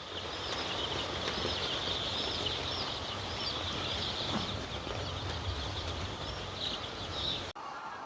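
A large flock of chickens in a poultry shed: a dense, high-pitched chorus of overlapping chirps over a low rumble, cutting off abruptly about seven and a half seconds in.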